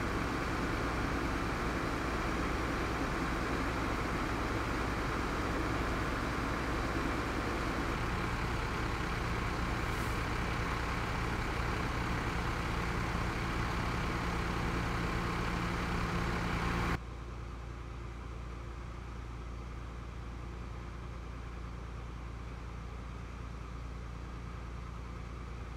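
Parked fire trucks' diesel engines idling, a steady low rumble with a hum. About 17 seconds in it drops abruptly to a quieter steady hum.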